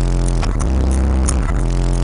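Bass-heavy electronic music played loud through a car audio system's subwoofers, with deep bass notes held for over a second at a time.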